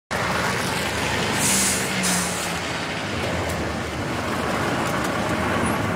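Heavy semi-truck running with a steady engine noise, with two short hisses of its air brakes about a second and a half in.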